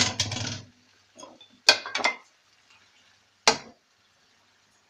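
Wooden spatula knocking and scraping against a nonstick wok as spaghetti is tossed into tomato sauce, in three short clattering bursts.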